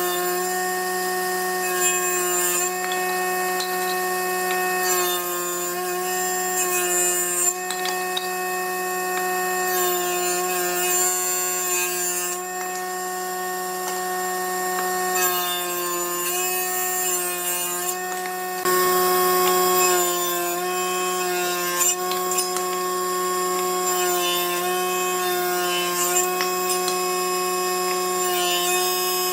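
A woodworking power tool running with a steady whine while working wood, with scraping and small knocks from the workpiece.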